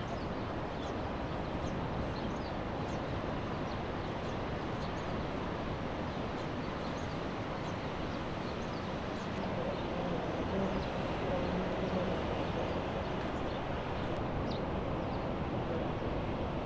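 Steady noise of ocean surf breaking, with short faint high bird chirps scattered through it.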